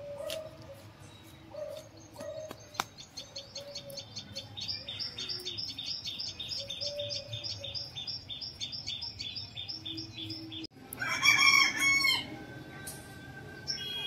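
A small bird chirps rapidly and over and over in a steady run, then near the end a rooster crows once, loud, about a second long.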